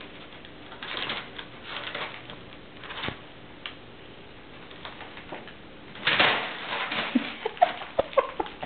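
Crumpled kraft paper crinkling and rustling in bursts under a cat rolling and kicking on it, louder and busier about six seconds in as a second cat pounces.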